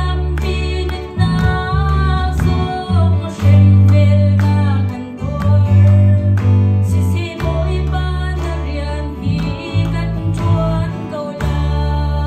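A woman sings a worship song into a handheld microphone over a guitar accompaniment with steady low bass notes.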